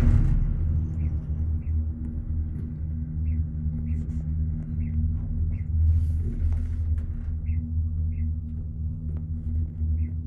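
Gondola lift cabin running along its cable: a steady low rumble and hum, with a brief swell of rushing noise about six seconds in.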